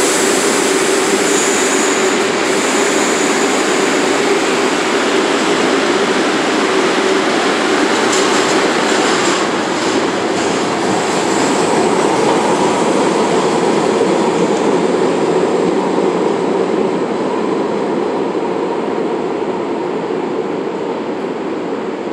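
New York City Subway R62A train pulling out of an underground station and accelerating away, its wheels and motors running loud in the tiled station, growing fainter near the end as it leaves.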